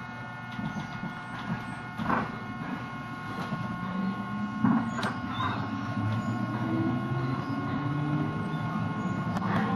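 Running sound inside a 221 series electric multiple-unit train as it pulls out of a station and gathers speed. The traction motors and gearing hum in tones that rise slowly in pitch as it speeds up. A few sharp knocks come from the wheels and bogies.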